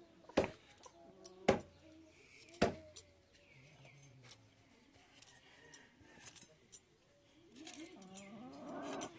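A knife chopping on a cutting board: three sharp chops about a second apart, followed by lighter clinks and taps.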